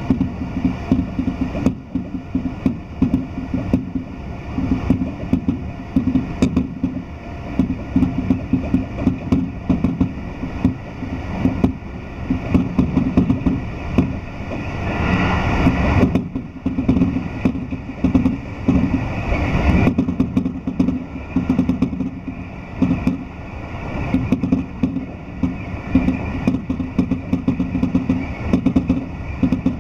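Keio Line electric commuter train running, heard from inside the carriage: a steady low rumble with many short clicks of the wheels on the rails, and a louder rushing noise swelling for a few seconds about halfway through.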